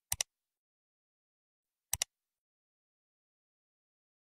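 Two computer mouse clicks, one just after the start and one about two seconds later, each a quick press-and-release pair, against dead silence.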